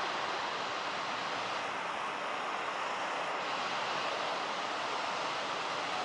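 Steady rushing roar of big Atlantic surf breaking, heard from a distance.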